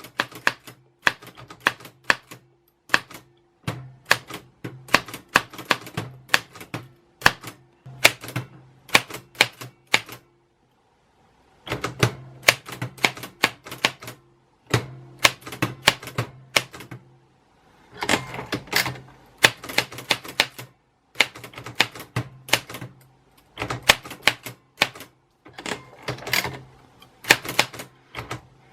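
Typewriter keys striking in quick, irregular runs of clicks as text is typed. The typing stops for about a second and a half roughly a third of the way through.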